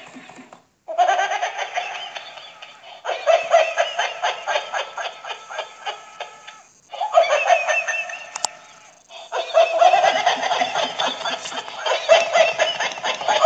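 Continuous hearty laughter in quick rhythmic ha-ha bursts, made of several bouts that start and stop abruptly as if spliced together.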